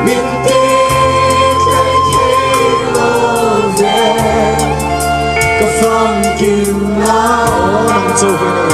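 A crowd singing a slow worship song together with a live band: long held sung notes over keyboard, bass and drums.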